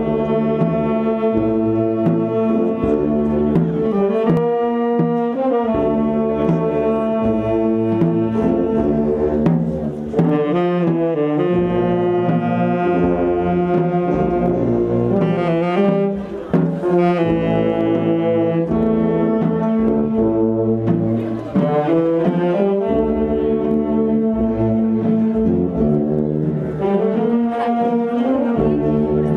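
Brass band of trumpets, saxophones and sousaphones playing a slow piece, the chords held long and changing every second or two.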